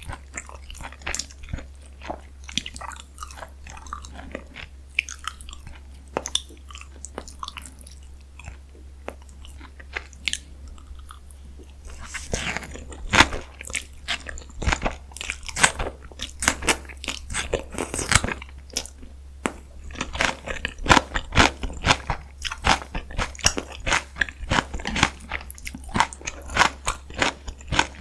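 Close-miked eating: soft chewing with scattered bites for about the first twelve seconds, then loud, rapid crunching of deep-fried battered food.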